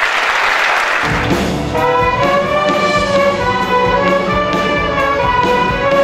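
A children's and youth orchestra starts playing about a second in, after a moment of applause. Brass sits on top, with woodwinds and a steady low bass beneath.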